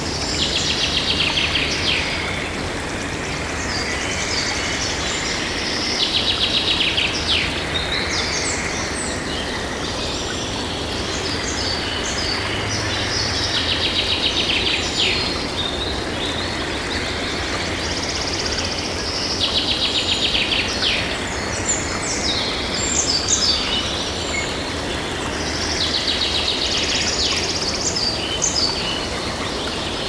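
Steady rush of a river running over rocky rapids, with a songbird singing short trilled phrases every few seconds.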